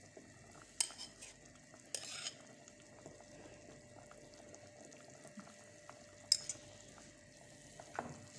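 A few light clinks and a short scrape of a spoon against cookware while two tablespoons of olive oil are spooned into the soup pot, over the faint steady hiss of the pot simmering.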